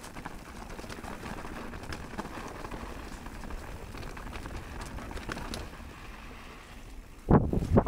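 Mountain bike rolling fast down a dirt singletrack: a steady rush of knobby tyres on dirt and grit, with scattered small ticks and rattles, and a loud low thump near the end.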